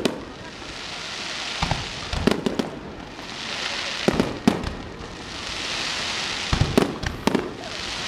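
Fireworks display: aerial shells bursting in sharp bangs, often in pairs, about eight over the few seconds. Twice between the bangs a rushing, crackling hiss swells and fades.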